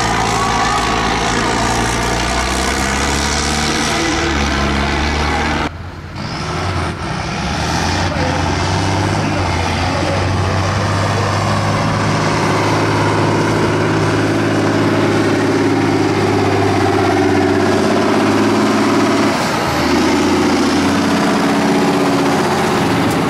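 Tractor diesel engines running under load: a Zetor towing a loaded forestry trailer up a dirt slope, then, after an abrupt cut about six seconds in, a John Deere 7430's diesel working across soft dirt, its engine note shifting a few seconds before the end.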